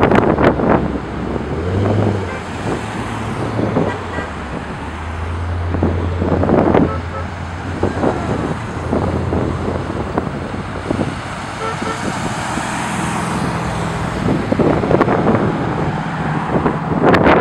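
A line of Corvettes driving past one after another, their V8 engines running with a low steady note over tyre and traffic noise. The engine note swells about five seconds in as a car passes close.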